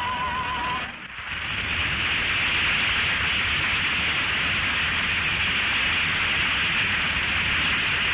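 The closing note of a song, held with vibrato, ends about a second in. Steady studio audience applause follows.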